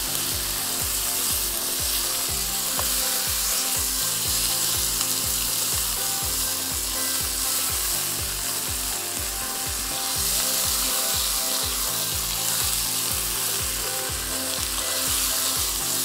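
Food sizzling in a hot cooking pan, a steady hiss. Under it runs background music with a quick, steady low beat and a bass line that changes every couple of seconds.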